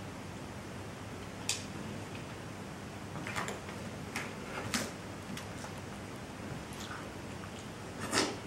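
Scattered soft rustles and taps of a person shifting and crawling on a studio floor, over a faint low hum, with a louder rustle near the end.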